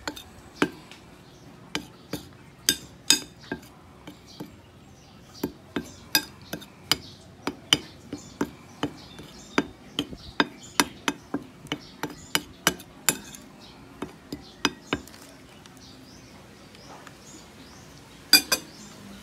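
Metal spoon clinking against a ceramic bowl while stirring a dry flour mix: irregular sharp clinks, two or three a second, stopping about fifteen seconds in, then one louder double clink near the end.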